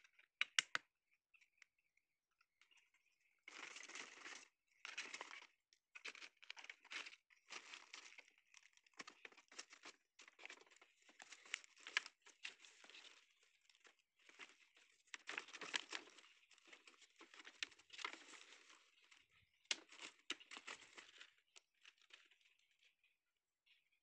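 Dry bamboo leaves and stems rustling and crackling in irregular bursts as someone handles them, after a couple of sharp clicks about half a second in.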